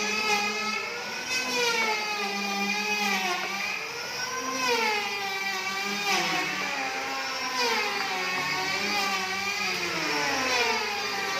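Engine running with its pitch sliding down and back up again every second or two.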